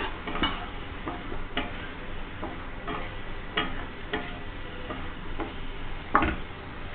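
Wooden spatula scraping and knocking against a non-stick kadai while stirring semolina balls through a simmering masala gravy, over a low steady sizzle. The knocks come irregularly, about one every half second to second, with the loudest about six seconds in.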